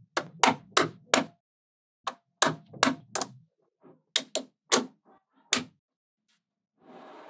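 Blocks of small magnet balls clicking into place against a magnet-ball structure: a run of sharp clicks in quick groups of two to four. A faint steady hiss starts near the end.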